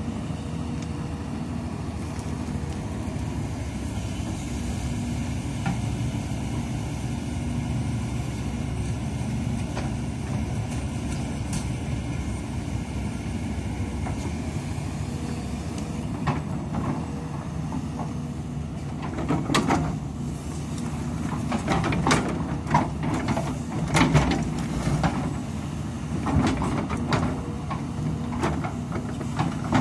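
Hidromek 300 hydraulic excavator's diesel engine running steadily under digging load while the steel bucket bites into stony earth. In the second half, repeated knocks and scrapes of the bucket against rock and stones.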